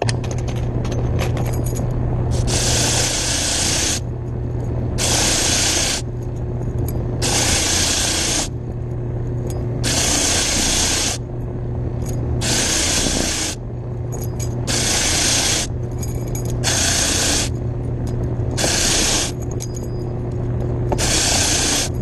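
Motor-driven wire brush wheel of a key machine running with a steady hum. Cut brass keys are pressed into it again and again, giving a harsh hissing scrape about a second long roughly every two seconds as the burrs are brushed off. The brush is newly fitted.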